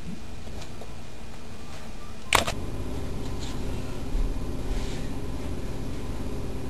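Steady hiss and hum of a home camcorder's recording, with a single sharp click a little over two seconds in, followed by a low rumble of room noise and movement.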